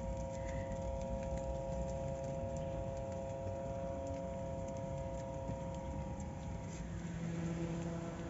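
Small portable electric fan running, with a steady motor hum of several held tones over a rushing low-end air noise and a few light clicks. The hum shifts slightly near the end.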